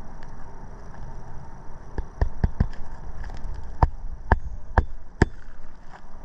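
Hammer driving roofing nails back into asphalt shingles: about eight sharp strikes, starting about two seconds in, some in quick succession and others spaced about half a second apart.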